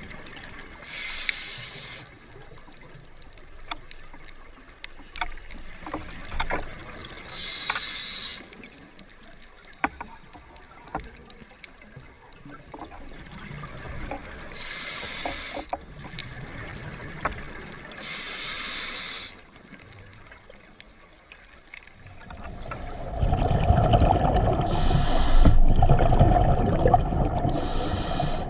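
Scuba regulator exhaust bubbles hissing out in bursts of about a second every few seconds, heard through an underwater camera housing, with scattered faint clicks in the water. About two thirds of the way through, a loud low rumble with a steady hum sets in and stays the loudest sound.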